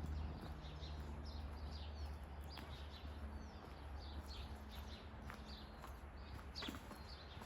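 Several forest birds calling in quick, short high chirps and downward-sweeping notes scattered throughout, over a steady low rumble.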